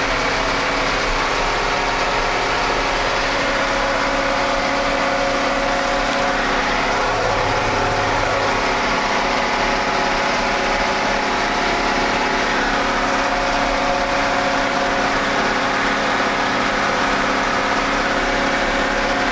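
Case 2090 tractor's six-cylinder diesel engine running steadily under load at road speed in top power-shift gear, heard from inside the cab.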